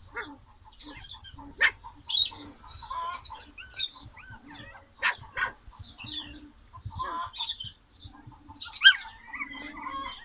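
A litter of Puli puppies squeaking, whimpering and yipping in short, high calls that come irregularly, several puppies overlapping.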